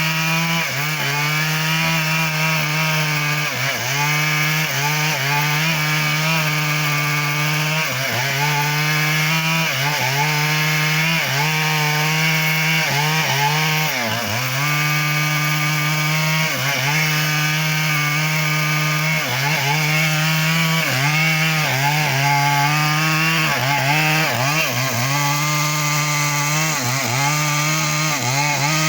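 Stihl MS 382 two-stroke chainsaw cutting mahogany at high revs. Its pitch dips briefly and recovers every second or two as the chain loads up in the wood.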